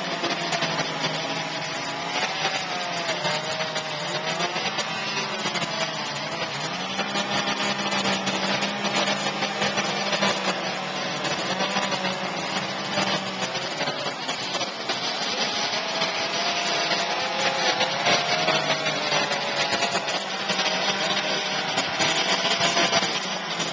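Two-stroke chainsaws running, their engine pitch wavering up and down as they rev while cutting wood.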